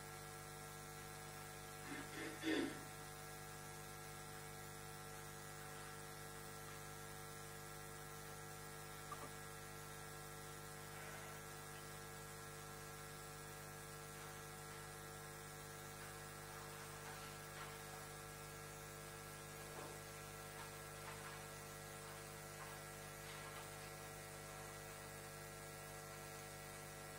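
Steady electrical mains hum made of several steady tones, with a brief faint sound about two seconds in.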